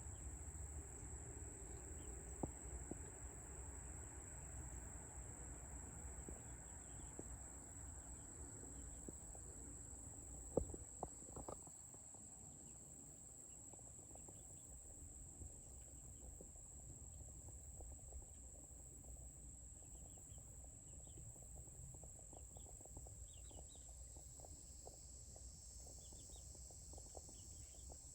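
Faint outdoor ambience dominated by a steady, high-pitched insect chorus, with a few sharp clicks about ten seconds in.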